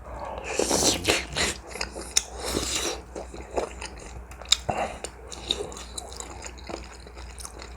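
Close-miked eating of instant ramen with dumplings and kimchi: wet chewing and mouth smacks, with two longer noisy stretches in the first three seconds followed by scattered short clicks.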